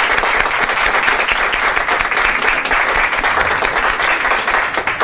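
Audience applauding, many hands clapping in a steady dense patter.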